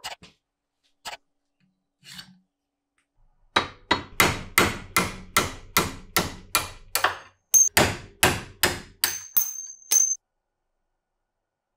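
Steady hammer blows on steel, about three a second, driving a pin out of an old adjustable monkey wrench's sliding jaw set over a vise. There is a brief pause partway through, and some of the later blows ring with a high metallic tone.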